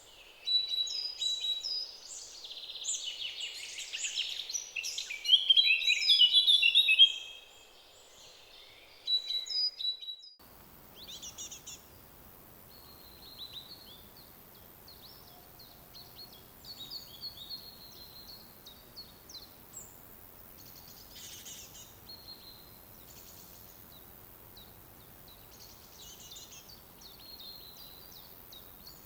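Forest songbirds singing: a loud, dense mix of chirps and trills for the first several seconds, then, after an abrupt change about ten seconds in, fainter scattered birdsong over a soft steady background hiss.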